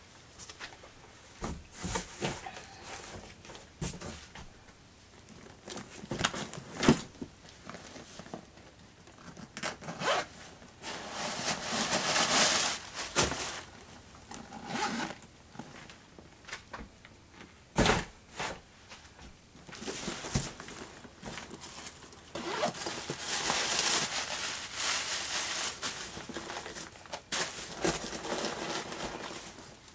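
Handbags being unwrapped and handled: crinkling and rustling of plastic and paper packing in irregular stretches, the longest and loudest near the middle and over the last third, with a few sharp knocks from the bags and their hardware.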